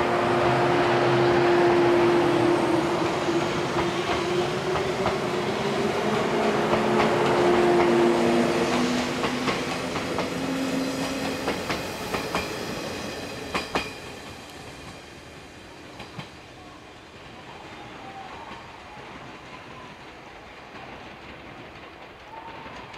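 A 485-series electric express train running past at close range: a loud running hum with a whine that slides lower over the first ten seconds or so, a few sharp wheel clicks over rail joints about twelve to fourteen seconds in, then the sound falls away to a quieter, steady rumble.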